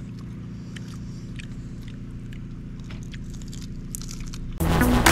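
Grilled mantis shrimp shells crackling and crunching as they are peeled and chewed: scattered short crisp clicks over a steady low hum. Loud electronic music cuts in near the end.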